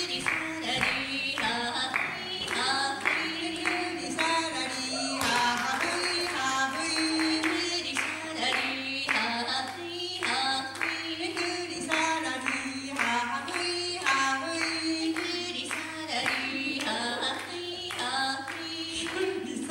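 Women singing a traditional Ainu song together, with a steady percussive beat of about two to three strokes a second.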